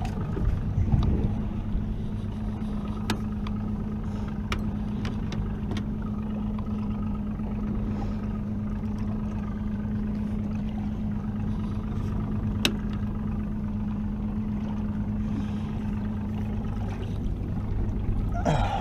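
A boat's motor running with a steady hum that cuts out about two seconds before the end, with a few sharp clicks now and then.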